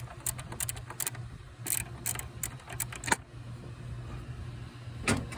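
Ratchet wrench clicking in short runs and metal tools clinking while loosening the brake booster's bolts, over a steady low hum.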